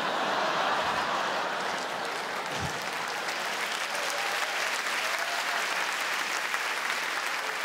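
Theatre audience applauding and laughing in response to a punchline; the clapping swells up at once and then holds steady.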